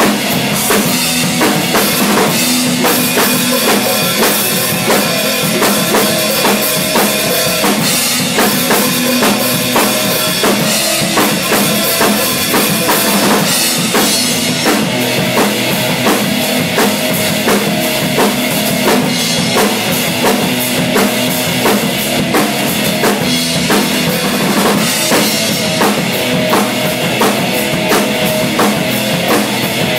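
Acoustic drum kit played continuously: a driving beat of bass drum, snare and cymbals, with rapid evenly spaced strikes.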